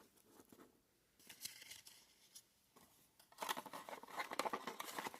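Trading card booster pack wrapper being crinkled and torn open: a few short rustles, then a denser crackling stretch from about three and a half seconds in.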